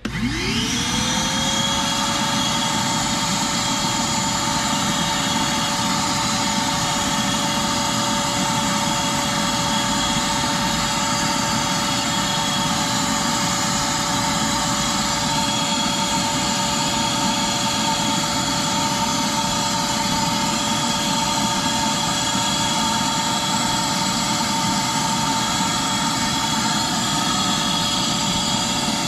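Shop-Vac wet/dry vacuum, converted into a pond vacuum, switched on: its motor spins up within about a second to a steady high whine and runs on at full speed.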